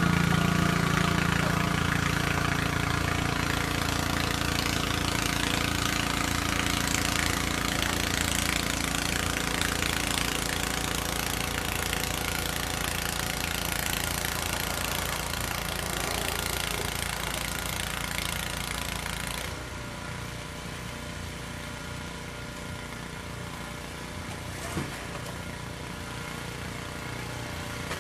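An engine running steadily, slowly fading, with a further drop in level about two-thirds of the way through.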